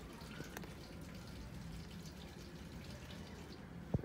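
A cat chewing dry kibble: a scatter of faint small crunches and clicks. A single brief thump near the end.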